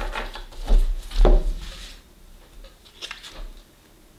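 Tarot cards being shuffled and handled, with a couple of sharp slaps and knocks in the first second or so, then a few faint clicks as a card is drawn from the deck.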